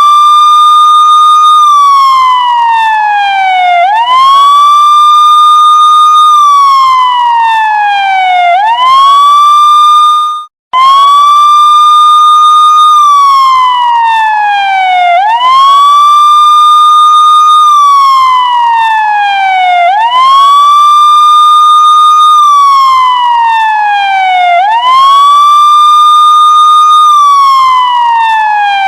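A police siren wailing. Each cycle rises quickly, holds its high tone, then falls slowly, and the cycle repeats about every four and a half seconds. The sound cuts out for a split second about ten seconds in, then resumes on the high note.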